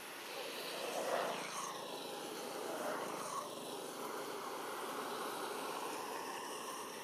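Distant engine noise, a steady rumbling hiss that swells about a second in and then settles.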